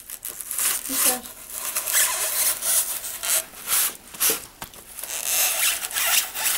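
Box cutter blade sawing through white foam board along a traced circle: repeated short scraping strokes, about two or three a second.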